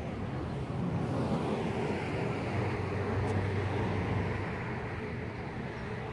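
A car's engine running as it drives past close by: a low hum and road noise that swell about a second in and fade over the last couple of seconds.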